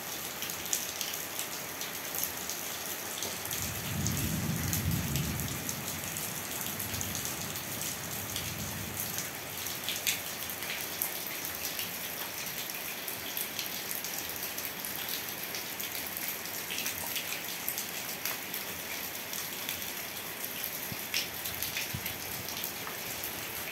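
Heavy rain falling steadily and splashing on wet ground, with many sharp drop ticks. A low rumble comes in about four seconds in and fades away by about nine seconds.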